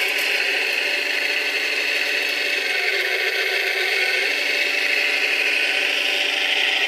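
Scale-model Cat 966 wheel loader's electric drive motors and gearboxes whirring steadily as it pushes dirt into a trench, the pitch dipping briefly a few seconds in as it takes the load.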